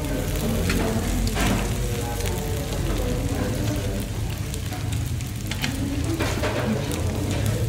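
Shrimp, squid and meat sizzling in their juices on a tabletop grill pan, with metal tongs clicking and scraping against the pan a few times as the food is turned.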